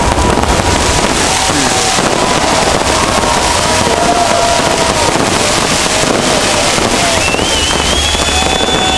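Fireworks display: a dense, continuous crackle of sparkling fountain and aerial effects. A thin, high whistle comes in near the end.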